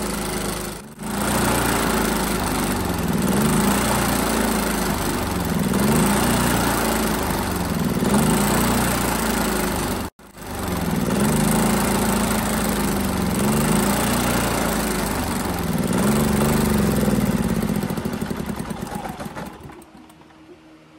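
Predator 3500 inverter generator's single-cylinder OHV engine running, its speed rising and falling every second or two. The sound drops out briefly twice and fades away near the end.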